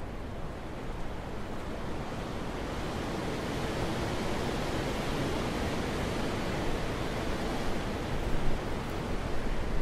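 Wind blowing steadily, building into a stronger gust through the middle and easing slightly, with a few short, louder buffets near the end.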